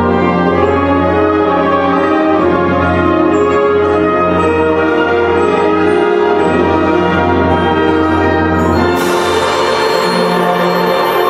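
Brass and wind band playing held chords over a low sustained bass note. About nine seconds in, a cymbal crash rings out and the bass note drops away.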